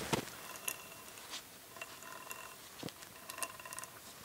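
SEM brushed DC servo motor (Anilam CNC Z-axis) with its shaft turned slowly by hand, giving faint, irregular ticking and scratchy rubbing from inside. It is the sound of a failed motor whose carbon brushes and winding insulation have burnt.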